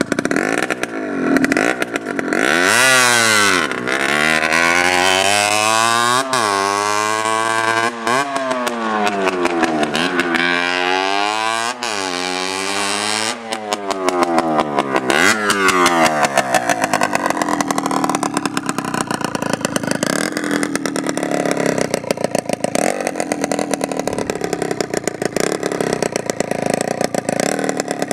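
Beta RR 50 supermoto's 50cc two-stroke engine running with no exhaust fitted, so it sounds straight off the exhaust port. It is revved and ridden with the pitch climbing and dropping over and over, then from about halfway it runs at low revs with a fast, ragged popping.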